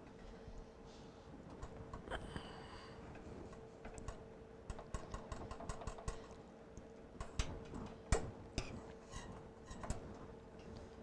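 Metal fork tapping and scraping against a nonstick skillet while turning patties in gravy: a run of light clicks, thickest in the second half, with the sharpest tap about eight seconds in.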